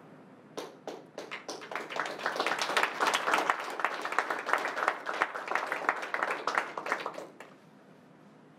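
Small audience applauding. A few scattered claps come about half a second in, build to steady applause, and stop fairly suddenly near the end.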